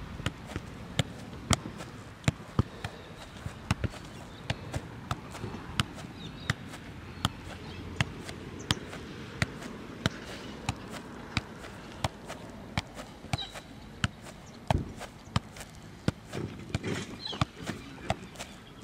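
Soccer ball being juggled: a steady run of sharp thuds as the ball is kicked up again and again off the foot, about two touches a second.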